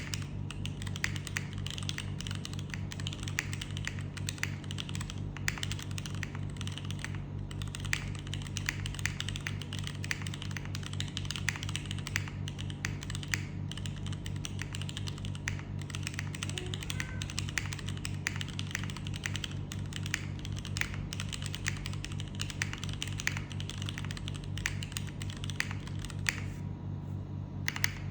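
Continuous fast typing on a Rule60 v3 60% mechanical keyboard with Cherry HB switches on an aluminium plate, a soldered PCB, Cherry clip-in stabilisers and DCS keycaps: a dense, steady stream of key clacks.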